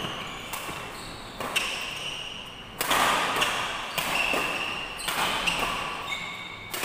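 Badminton rally: racket strings striking the shuttlecock about once a second, each hit sharp and echoing in the hall, the loudest about three seconds in. Short high squeaks of shoes on the court come between the hits.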